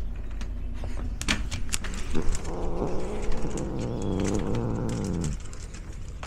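One drawn-out animal call lasting about three seconds, starting about two seconds in, low-pitched and wavering, over scattered crunching footsteps.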